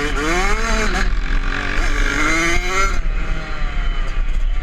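Kawasaki KX65 small two-stroke single-cylinder engine revving up and down while riding, heard from a camera mounted on the bike, with wind rumble on the microphone. The revs climb in the first second, drop back, and climb again about two to three seconds in.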